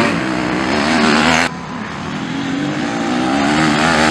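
Motocross bike engines revving and shifting pitch as riders pass on the dirt track. The sound drops abruptly to a quieter engine note about a second and a half in.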